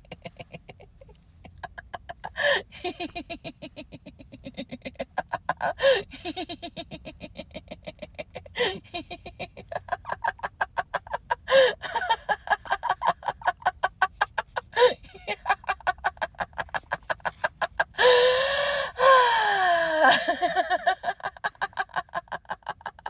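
A woman laughing continuously in quick, rhythmic "ha-ha" pulses, broken by louder bursts. Near the end comes a long, high laugh that falls in pitch. This is deliberate laughter as an exercise, the kind used in laughter yoga.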